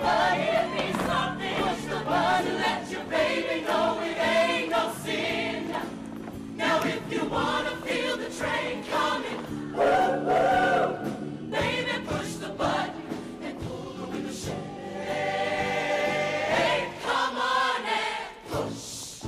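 Show choir singing an up-tempo number over instrumental backing, holding one long chord about fifteen seconds in.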